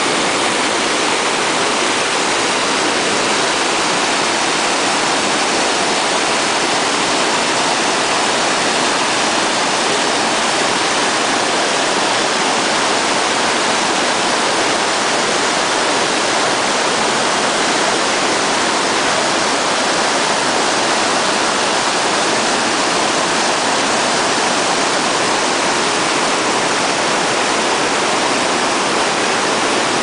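Mountain stream cascading over granite boulders: a steady, loud rush of white water that never lets up.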